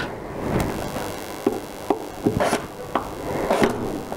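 Scattered knocks and clicks of a Makita cordless drill-driver being handled and set down onto a metal hold-down clamp on the CNC bed, about seven separate knocks with no steady motor run.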